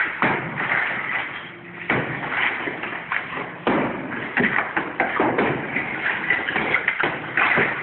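Irregular knocks and thuds of construction work, spaced unevenly about one to two seconds apart, over a busy background din.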